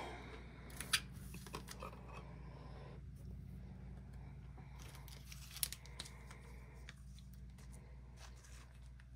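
Trading cards being handled by hand: faint rustling and sliding with a few light clicks, the sharpest about a second in and another a little past the middle, over a low steady hum.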